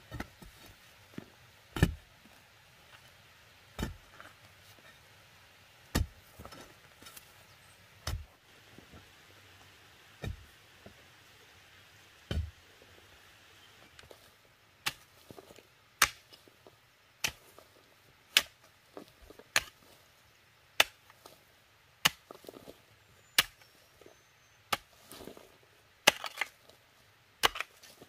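Hoe blade striking into earth, one heavy thud about every two seconds. About halfway through the strikes come quicker and sharper, roughly once a second.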